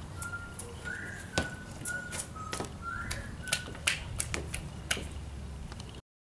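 A person whistling a short run of steady notes at about one pitch, two of them sliding up and back, over scattered sharp clicks. The sound cuts off to silence about six seconds in.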